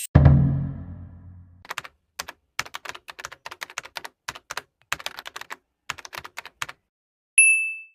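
A loud low thud that rings out and fades, then computer keyboard typing: irregular clicks of keys for about five seconds, ended by a short high ding.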